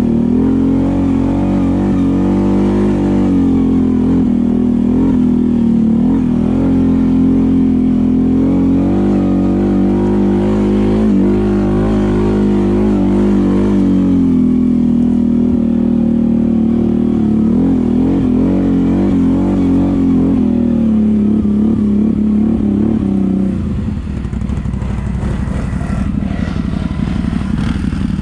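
ATV engine running hard under throttle, its pitch rising and falling with the revs. About five seconds before the end it drops back to a lower, less even sound.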